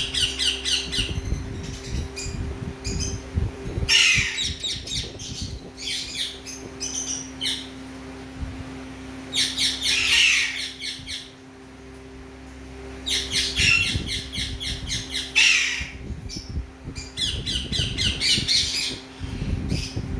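Caged parrots squawking in repeated harsh bouts, each a rapid string of shrill calls lasting a second or two, over a steady low hum.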